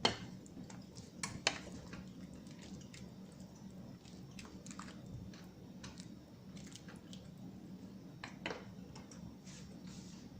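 Occasional light clicks and knocks of a cooking utensil against a pot, over a steady low hum.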